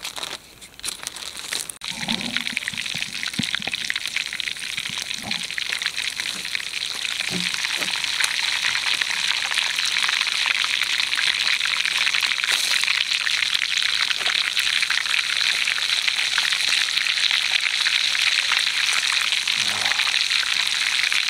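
Flour-coated whole bluegill frying in hot vegetable oil and butter in a cast-iron skillet: a dense crackling sizzle that starts suddenly about two seconds in as the fish go into the oil, grows louder over the next several seconds, then holds steady.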